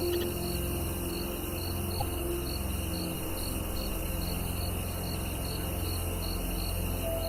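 A cricket chirping in an even rhythm, about two chirps a second, over soft ambient music with long held low tones.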